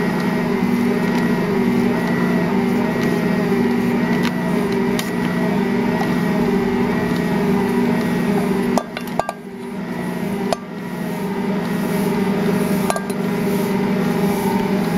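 Assistent Original stand mixer running, its rotating steel bowl and dough roller kneading a 1 kg bread dough while butter is worked in. It makes a steady motor hum with a slight regular waver, broken by a few sharp knocks in the second half.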